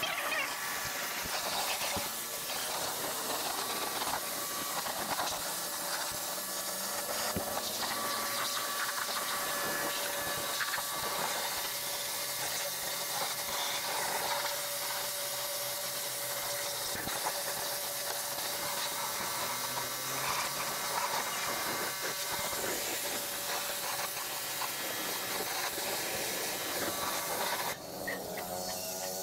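Pressure washer jet spraying water onto a car: a steady hiss with a faint humming tone from the machine underneath.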